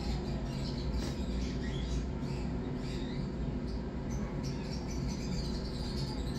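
Young kittens giving short, high-pitched squeaky mews, many in quick succession, over a steady low hum.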